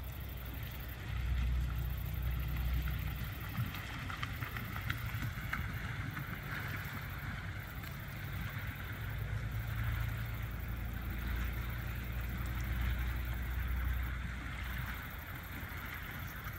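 Water churning and splashing as a flock of American white pelicans feeds in the shallows, as a steady hiss with small scattered splashes. A low rumble that swells and fades runs underneath.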